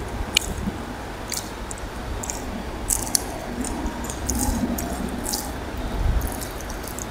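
Close-up wet eating sounds of rice and curry eaten by hand: soft squishing as fingers knead the rice and curry on the plate, with scattered short, sharp wet clicks and smacks.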